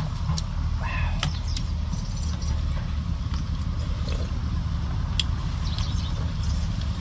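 Steady low outdoor rumble with faint bird chirps now and then, a short pitched call about a second in, and a few light clicks of a spoon.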